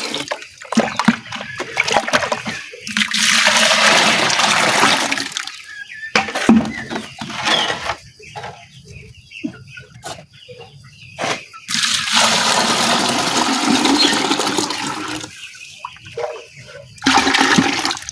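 Drinking water mixed with charcoal and aloe vera being poured and splashed, in several long pours with short pauses and a few knocks between.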